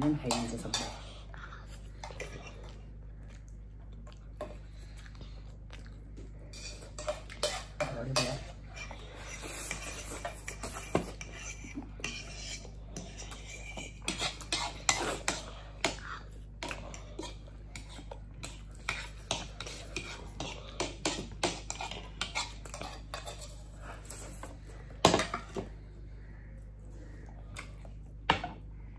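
A fork and a spoon clinking and scraping against plates during a meal, in scattered runs of short clicks, with one louder knock late on.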